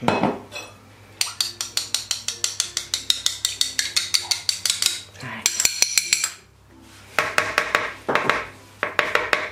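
A metal utensil clinking rapidly against a small glass dish while an egg is beaten, about eight quick strikes a second, pausing briefly and starting again in shorter bursts in the second half.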